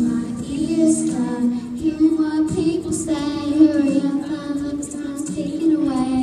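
A young girl singing a pop song solo into a handheld microphone, in sustained sung phrases that glide in pitch.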